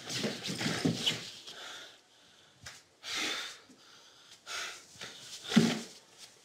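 A man breathing audibly amid rustling and handling noises as he moves and crouches, with a louder sound about five and a half seconds in.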